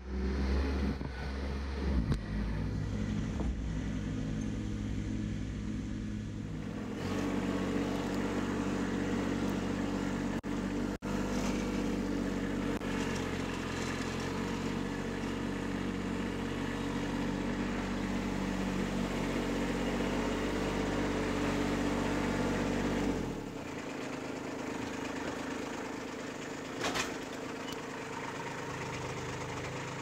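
Kubota B2601 compact tractor's three-cylinder diesel engine running steadily as the tractor is driven. About three-quarters of the way through the engine note drops away, leaving a quieter hiss.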